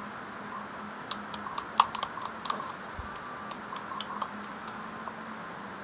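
A quick run of irregular light clicks and taps, a dozen or so over about three seconds, over a faint steady hum.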